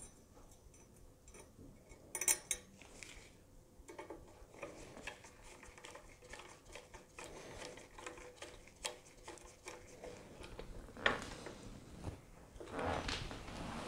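Small metal clicks and clinks as a hex-bit driver turns the steel set screws of a gas port seal clamped on an AR-15 barrel, with a sharper clatter of metal about two seconds in and more near the end.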